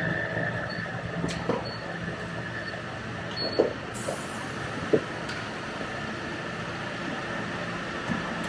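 Harvest machinery running steadily: a constant engine hum with a high whine over it, and a few light knocks.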